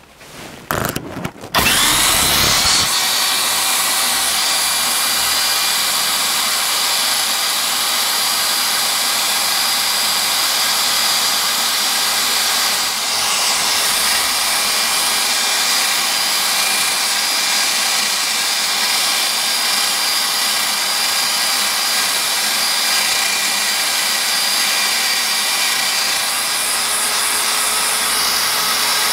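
Small electric cross-drilling spindle on a lathe toolpost, starting after a few knocks and rising to a steady high whine about two seconds in. It keeps running as its 2.3 mm tapping drill bores into an aluminium cylinder.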